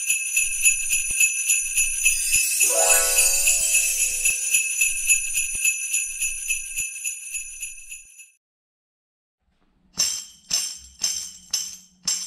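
Jingle bells shaken in a steady, quick rhythm for about eight seconds, with a short pitched sweep passing through them about three seconds in. They stop. After a brief silence the bells come back as separate shakes, about two a second.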